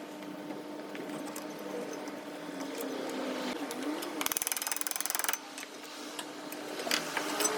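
Steady mechanical hum with scattered clicks. About four seconds in comes a rapid, even mechanical rattle lasting about a second.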